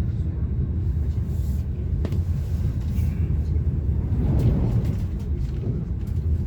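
Steady low rumble of a moving train, heard from inside the passenger car, with faint clicks and a brief swell about two-thirds of the way through.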